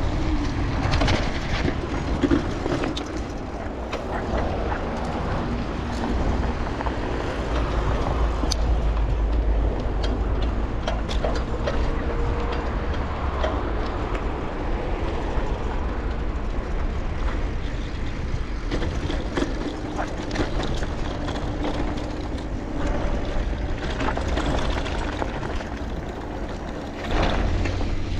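Riding a bicycle: wind buffets the microphone in a steady low rumble, under tyre and road noise with scattered rattles and clicks. The rumble grows louder near the end.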